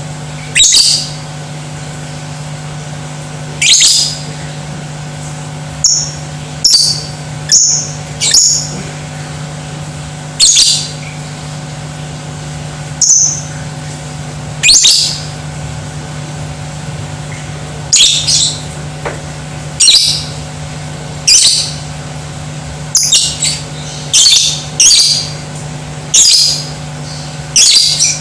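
Lovebird giving short, shrill, loud calls one after another at irregular gaps, some in quick pairs, about twenty in all, over a steady low hum.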